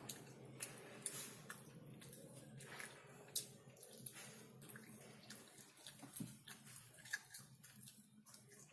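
Close-miked wet chewing and mouth clicks of someone eating chicken, a steady run of small sticky, squelchy clicks with one sharper click about three seconds in.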